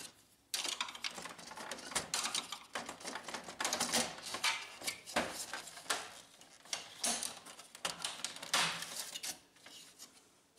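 Hard plastic panels of a Brother laser printer being handled and snapped into place: a busy run of clicks, rattles and scrapes that starts about half a second in and dies down near the end.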